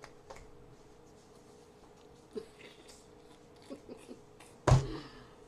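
A few faint handling noises, then one loud thump near the end, over a faint steady hum.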